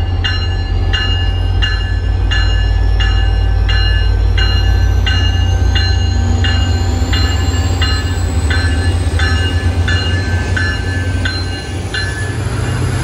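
MBTA F40PH-3C diesel locomotive pulling past with its bell ringing about three times a second over the steady low rumble of its engine. A faint high whine rises slowly, and the bell stops about a second before the end.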